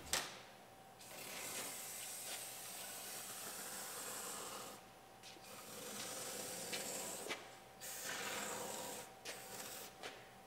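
Aerosol cavity wax hissing out through a long extension wand into a liftgate drain hole, in bursts: three sprays of one to three and a half seconds each, then a couple of short puffs near the end.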